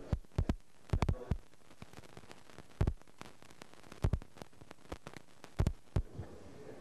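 A dozen or so sharp, irregularly spaced knocks and thumps, several close together at the start and then single ones every second or so, over a steady low background.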